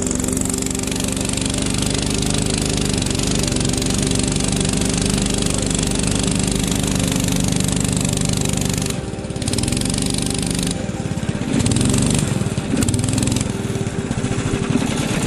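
Small petrol engine of a motor-dog (tracked snow tow tractor) running steadily as it warms up after a cold start; its speed dips a little over nine seconds in, then rises and falls unevenly near the end.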